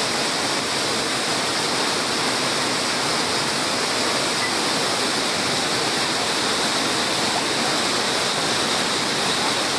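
Steady rush of a nearby waterfall, an even, unbroken roar of falling water.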